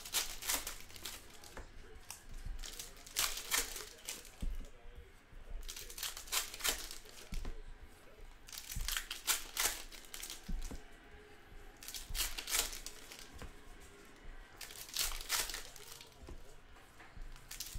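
Basketball trading-card pack wrappers being torn open and crinkled, in bursts of rustling about every three seconds.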